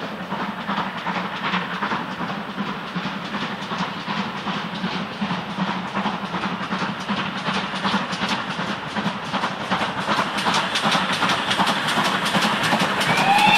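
Steam locomotive working a passenger train, its exhaust beats coming quicker and louder over a steady hiss of steam. Its whistle starts to sound right at the end.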